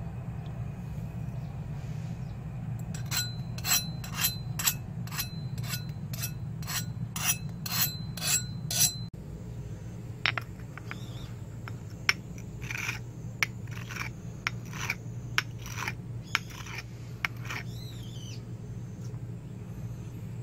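A hardness-test file (Tsubosan HRC60) drawn in quick strokes, about two a second, across the hardened steel edge of a quenched saw-blade axe head, a file test of the hardness. Each stroke is a short scrape with a thin ring, and a second run of strokes follows after a brief break, over a steady low hum.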